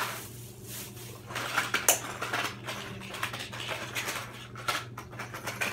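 A plastic shopping bag rustling as packs of hard-bait fishing lures are dumped out of it, followed by a run of sharp clicks and clatters as the hard plastic packages knock together and are handled.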